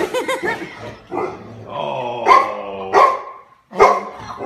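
A dog barking, a quick run of short barks at first and more barks through the rest, one of them longer and drawn out: wary alarm barking at a strange object on the floor.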